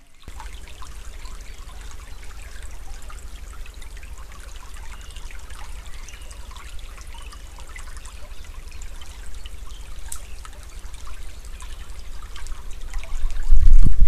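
A small stream trickling and babbling over a steady low rumble. A loud low thump-like surge comes just before the end.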